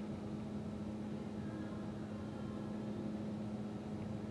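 Excavators' diesel engines running with a steady drone and a constant low hum; no crashes of debris are heard.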